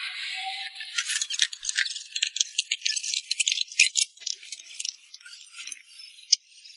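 Beef tallow and chicken fat melting in a wok over the fire. A brief hiss, then a run of irregular sizzling crackles and pops that thin out toward the end.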